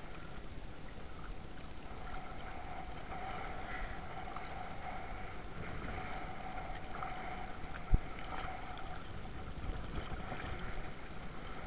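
Water sloshing around a small boat while a fishing net is hauled in by hand, over a faint steady hum that fades about nine seconds in. One sharp knock sounds about eight seconds in.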